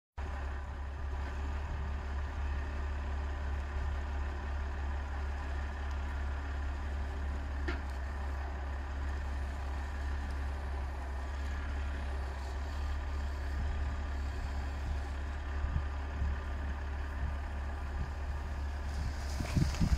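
Valtra 8550 tractor's diesel engine running steadily as it drives the forestry crane's hydraulics, with a few sharp knocks just before the end.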